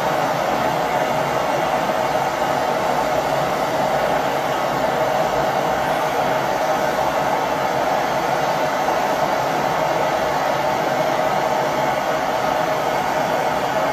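Handheld gas torch burning with a steady hiss, its flame played on a steel bracket in a vise to heat it for bending.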